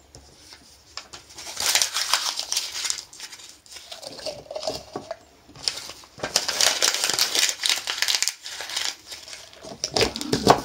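Sheets of coloured paper crinkling as they are crumpled and pushed into a small glass jar, in bouts of a couple of seconds with short quiet gaps between.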